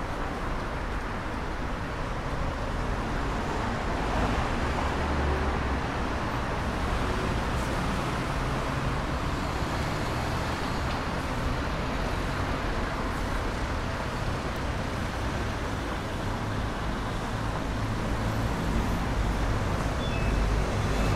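Street traffic on a city avenue: a steady wash of road noise from passing cars and other vehicles. The low rumble swells as heavier vehicles go by, about four seconds in and again near the end.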